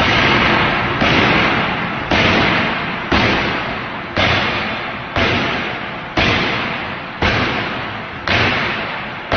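A machine working in a steady rhythm: a heavy thump about once a second, each followed by a noisy rush that fades away before the next.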